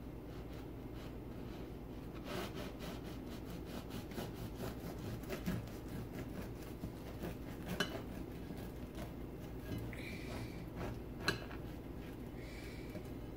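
A knife sawing through a crusty loaf of freshly baked whole wheat bread in repeated back-and-forth strokes, the crust rasping. Near the end come two sharp clinks as the blade touches the ceramic plate.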